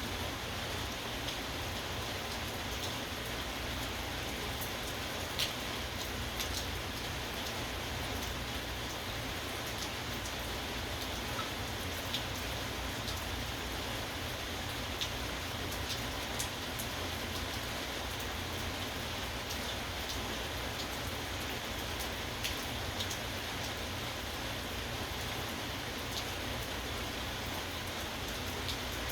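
Steady rain falling, with scattered sharp drop ticks every few seconds standing out from the hiss.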